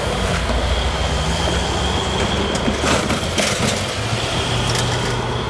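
MARC GP39H-2 diesel locomotive passing close by with its engine running and a steady high-pitched wheel squeal. A short run of clicks and knocks comes from the wheels on the rails about three seconds in.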